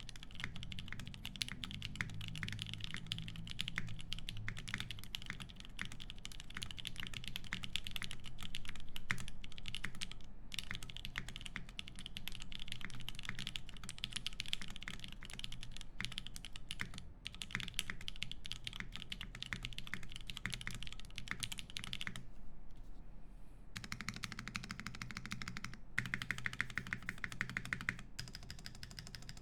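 Fast, continuous typing on an Emery65 mechanical keyboard with lubed Drop Holy Panda tactile switches in an aluminium plate and GMK keycaps. There is a brief pause about three-quarters of the way through, then the typing resumes.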